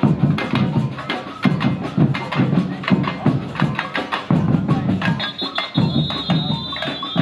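Marching street percussion band drumming a driving rhythm: booming large bass drums under rapid, sharp snare-drum strokes. A high, steady whistle is held over the drumming for about two seconds near the end.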